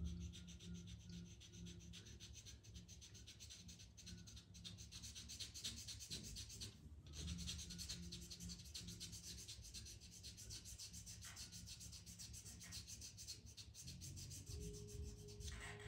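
Faint scratching of a pastel pencil on Pastelmat paper: a steady run of quick, short strokes, with a brief pause about seven seconds in.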